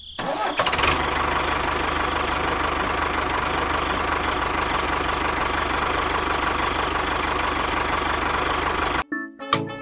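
Small engine running steadily at an even speed, with a fast low pulsing beat. It comes up over the first second and cuts off abruptly near the end.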